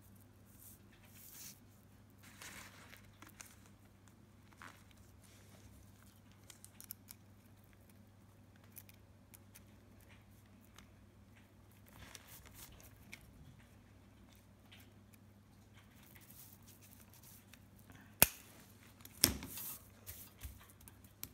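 Chain mail being worked by hand: small steel rings clinking and the mesh rustling while rings are opened, linked 4-in-1 and closed with pliers, in scattered faint clicks. Two sharper, louder metallic clicks come near the end.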